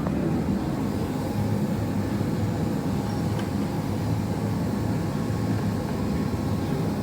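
Steady low mechanical rumble with a faint constant hum above it.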